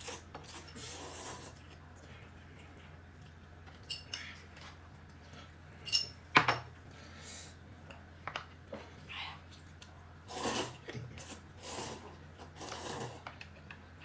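Scattered light clicks, taps and rubbing sounds of dishes and utensils being handled, with one sharp click about six seconds in.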